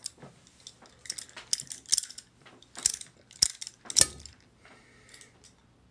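A run of irregular, ratchety clicks and crackles from a small object being twisted and worked in the hands, the loudest about four seconds in, dying away near the end.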